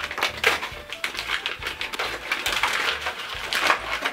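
Sheet of school paper crinkling and rustling in quick, irregular crackles as a wrapped fidget spinner is unwrapped by hand, over background music.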